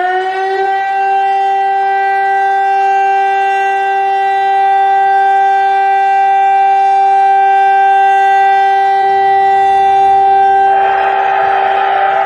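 Civil-defence siren sounding the steady test tone of a siren test. It reaches pitch just after the start and holds one unwavering note with strong overtones. About eleven seconds in, a second tone starts rising in pitch over a rushing sound.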